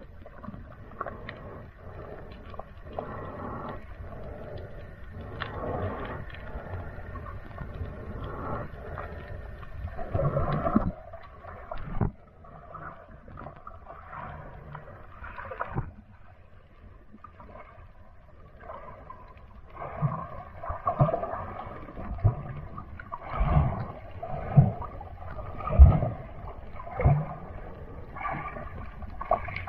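Muffled underwater water noise heard through a camera's waterproof housing: irregular sloshing and gurgling swells with scattered knocks. Stronger low thumps come in over the last third.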